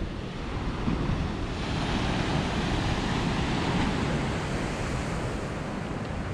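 Ocean surf breaking and washing up the beach, a steady wash that swells about a second and a half in and eases off toward the end, with wind noise on the microphone.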